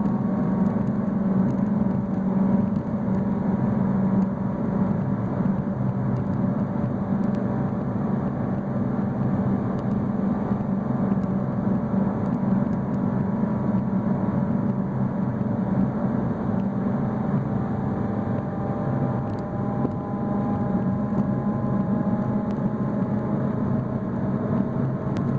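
Chevrolet Prisma's exhaust, fitted with a downpipe, a Cherry Bomb muffler and a Magnaflow muffler, rumbling steadily and loudly at an even engine speed, its pitch drifting only slightly.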